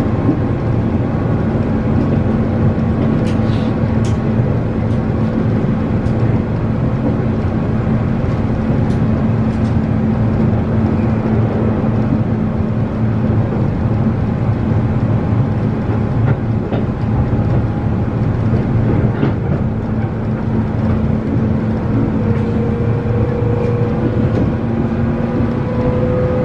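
A 117-series electric train's DC traction motors running loud under the floor, heard from inside the passenger car, over a steady rumble of wheels on rail with a few short clicks of rail joints. Near the end a motor whine rises slowly in pitch.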